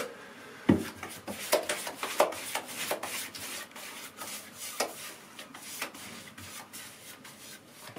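Paintbrush strokes spreading a runny watered-down PVA sealer over a plaster ceiling: an irregular series of short scrubbing swishes.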